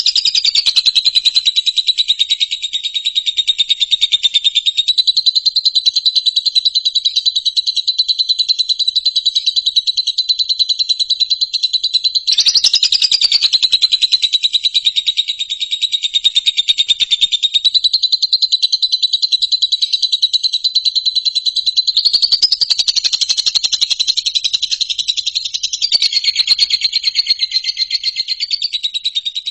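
A continuous, high-pitched animal trill: a very fast run of pulses that merges into a buzz, wavering slightly in pitch. It is a recorded sound track of the kind played to condition caged songbirds.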